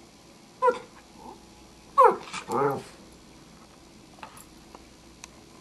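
Cairn terrier 'talking', with a short falling call about half a second in, then a longer two-part call about two seconds in, first falling and then rising and falling. The owner takes these vocal sounds for the dog asking for dinner.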